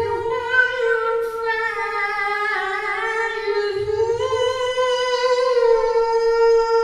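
A man reciting the Quran in melodic tajweed style into a microphone. He draws out one long, unbroken ornamented note whose pitch dips and rises.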